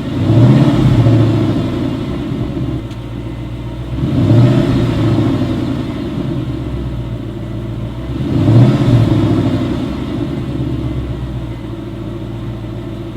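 2011 Ford Mustang GT's 5.0 V8 on its stock mufflers, blipped three times to about 2,000 to 3,000 rpm, each rev rising and falling back to a steady idle, about four seconds apart.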